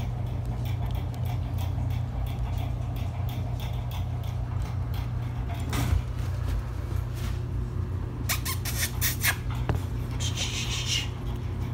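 Shih Tzu puppies, about three and a half weeks old, squeaking as they crawl over one another on fleece bedding. Scattered rustles and clicks of handling run through it, with a sharp click about six seconds in and a cluster of clicks around eight to nine seconds.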